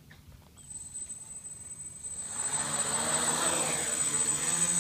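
Quadcopter drone's electric motors spinning up: a thin high whine starts under a second in, then about two seconds in the propellers' buzz swells loudly as it throttles up to lift off.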